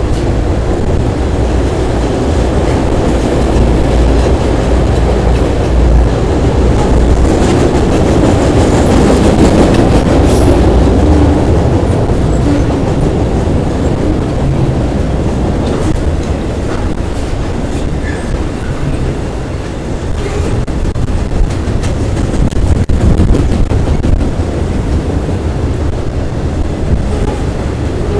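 Freight train of auto rack cars rolling across a steel trestle bridge: a steady, loud rumble of wheels on rail with scattered clicks and clanks, dipping briefly in loudness about two-thirds of the way through.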